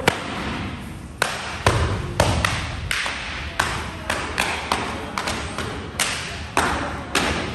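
Martial-arts belts whipping against the back of a heavy cotton gi, one sharp crack after another, about fifteen in all, irregular and roughly two a second, each with a short echo in the hall.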